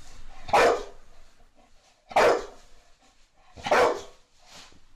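Boxer dog barking three times, short sharp barks about a second and a half apart, given from a play bow as an invitation to play.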